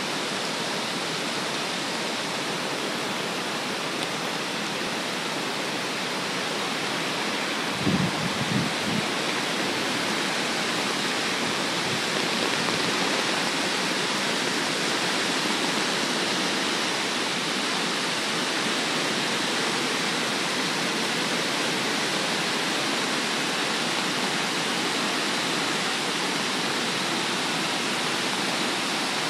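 Swollen creek in flood, its fast muddy water rushing in a steady, unbroken noise. A few low bumps on the microphone about eight seconds in.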